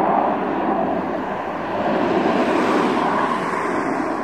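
Eurofighter Typhoon's twin Eurojet EJ200 turbofan engines heard as a steady jet rumble as the fighter climbs away, dipping slightly about a second in and swelling again.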